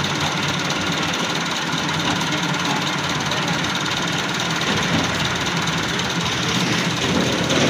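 An engine idling steadily, running at an even level without revving.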